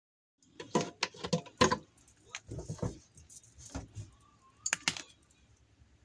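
Hard plastic bottles knocking and clattering against a stainless steel pot in a sink: a quick run of sharp knocks in the first two seconds, a cluster around three seconds, and a last pair near five seconds.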